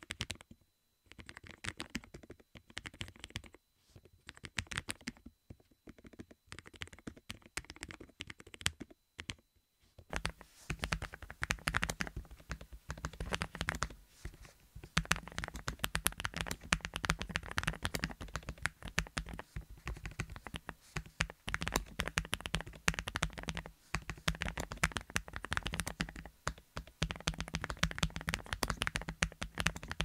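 Typing on a Lofree Edge ultra-thin keyboard: quick key clicks. For the first ten seconds or so it has its dark stock keycaps and the typing comes in short bursts with pauses. After that, with Lofree FLOW keycaps fitted, the clicking is continuous and louder over a steady low hum.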